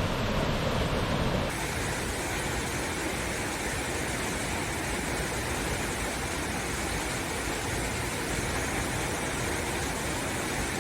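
Waterfall rushing steadily, a constant wash of falling water.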